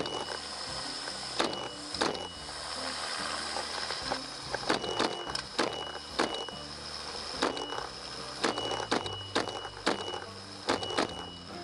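Background music with sharp percussive hits over a low line that steps from note to note.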